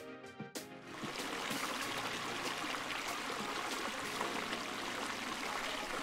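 Morning glory fountain nozzle running, throwing a bell-shaped sheet of water around a central jet that splashes steadily into the pond, an even rush of falling water. It starts about a second in, after a few plucked notes of music.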